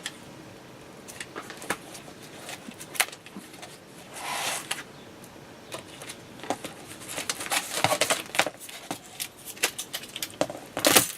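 A picture frame being handled and assembled by hand: a run of small clicks, taps and scrapes, busier in the last few seconds, with one louder click near the end.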